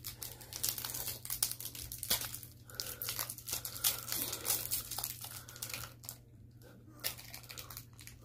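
Hi-Chew candy wrappers being crinkled and torn open by hand: a dense run of small crackles for about six seconds, thinning to a few near the end.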